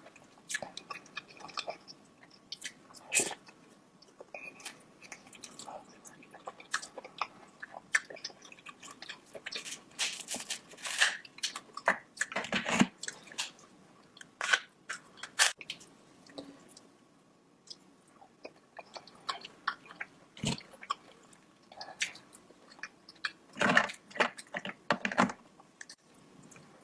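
Close-miked eating sounds from a meal of shelled seafood and corn in sauce: irregular bites, wet chewing and crunches, with denser flurries of bites about ten seconds in and again near the end.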